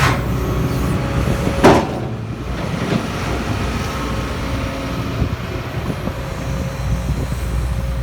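Case CX250C excavator's diesel engine running steadily, with a short loud hiss or clunk about two seconds in and a few lighter knocks later.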